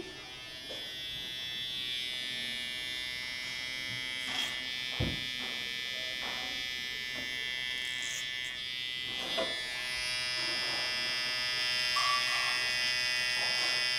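Electric hair clipper running with a steady buzz, a few faint clicks over it; the buzz grows slightly louder and brighter about two-thirds of the way through.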